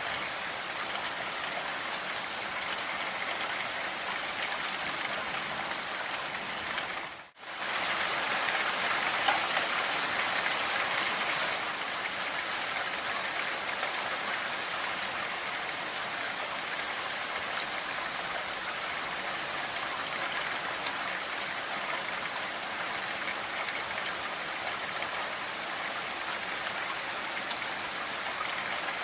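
Steady rain falling, an even hiss of many raindrops. It cuts out for an instant about seven seconds in, then comes back slightly heavier for a few seconds before settling.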